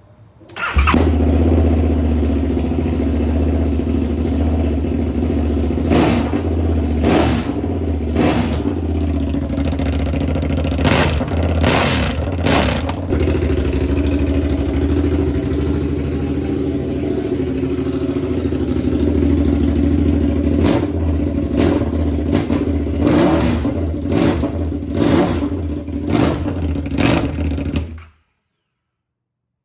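KTM 990 Adventure's 999 cc V-twin engine, running with no exhaust. It starts up about a second in and runs steadily, with repeated short blips of the throttle, then stops abruptly near the end.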